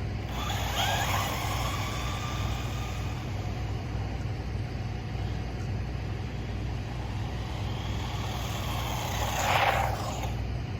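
Brushless motor of a 1/16-scale RC truck whining as it runs on pavement, rising in pitch as it accelerates about a second in, with a louder rush of motor noise near the end as it comes closer.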